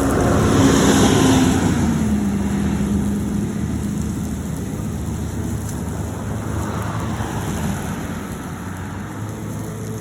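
Corded electric Greenworks lawnmower running and cutting grass: a steady motor hum with a rushing hiss, loudest about a second in, after which its pitch dips slightly and it fades a little.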